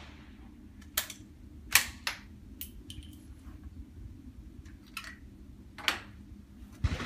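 Sharp metallic clicks and clacks at irregular spacing as a Sako Quad Range bolt-action rimfire rifle is handled between shots. Near the end a gunshot rings out with an echoing tail.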